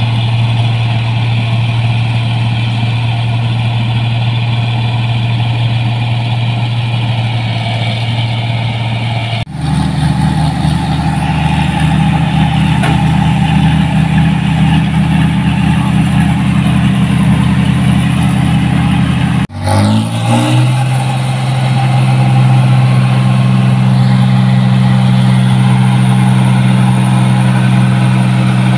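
New Holland combine harvester diesel engines running at a steady speed. The engine note changes abruptly twice, about ten and twenty seconds in, and rises briefly just after the second change as the engine picks up speed.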